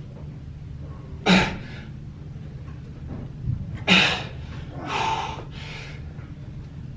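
A man breathing out hard and sharply with the effort of each rep of an incline dumbbell press, three forceful breaths a second or more apart, over a steady low hum.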